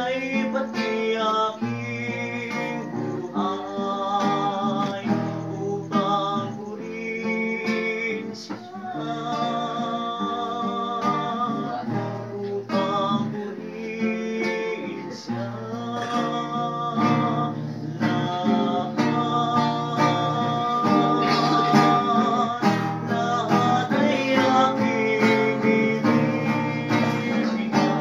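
Acoustic guitar strummed as accompaniment while voices sing a song.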